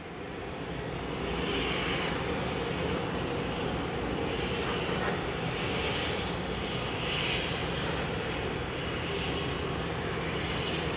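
A steady, distant engine drone mixed with broad outdoor rumble. It rises over the first second or so, then holds level, with a few faint clicks.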